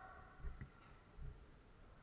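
Quiet room with a couple of soft low thuds of footsteps on a concrete floor, the first about half a second in and a fainter one just over a second in.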